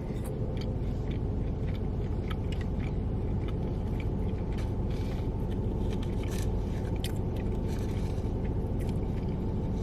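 Chewing and biting into crunchy fried food, with faint scattered crunches and clicks over a steady low background rumble that is the loudest thing throughout.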